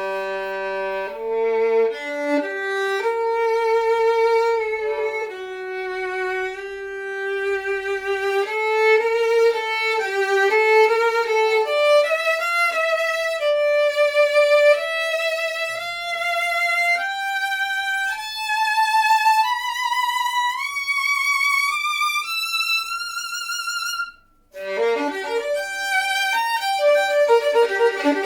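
Solo violin from a luthier's workshop being played. It starts on a low note on the G string, then a melody climbs step by step to high notes held with vibrato. After a brief break about 24 seconds in, a quicker passage with chords follows.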